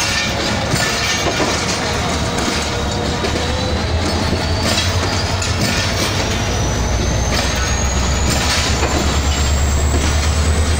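Passenger train coaches rolling past close by, their wheels clattering over rail joints in repeated knocks. A thin high whine rises slowly in pitch throughout, and a low rumble grows stronger in the second half.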